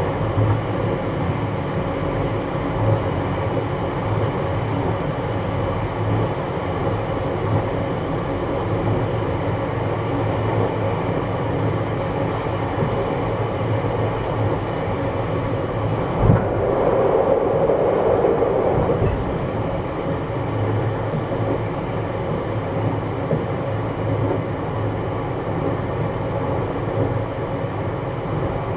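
Running noise heard inside the motor car of a JR West 321 series electric train with Toshiba traction equipment: steady rolling noise and motor hum. A single thump about sixteen seconds in is followed by a couple of seconds of louder rumble.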